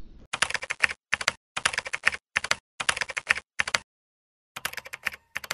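Keyboard typing: quick runs of key clicks in short bursts, stopping a little before four seconds in, then a few scattered clicks near the end.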